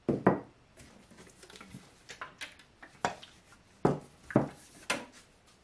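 Lid of a gallon metal can being tapped shut with a metal rod and the can handled on a workbench: a series of sharp metallic knocks, about five loud ones, with smaller clicks between.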